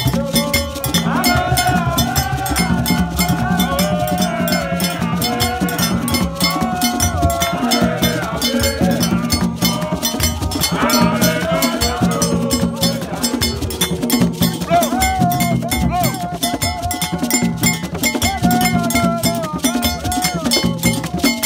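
Borborbor music: Ewe barrel drums beaten by hand, with a metal bell keeping a steady repeating pattern, while a crowd sings together and claps.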